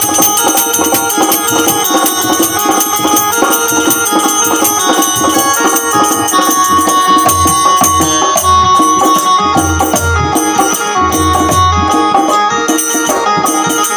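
Instrumental passage of an Indian devotional bhajan: hand drums with tabla-like strokes and jingling tambourine-type percussion keep a steady beat under sustained melody notes.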